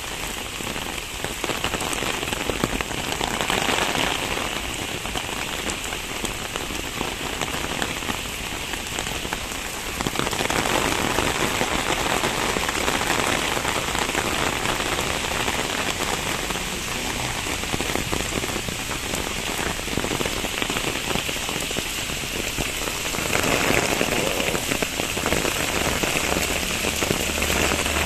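Heavy rain pouring onto a paved street, puddles and leafy trees: a steady hiss of drops that grows louder about ten seconds in.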